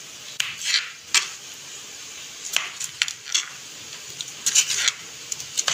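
Kitchen knife cutting tomatoes into cubes on a plastic cutting board: short, sharp, irregular taps as the blade goes through and strikes the board, several in quick succession.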